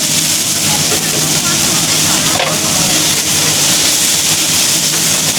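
Food frying and sizzling in hot oil on a street-food stall's griddle: a loud, steady hiss, with voices in the background.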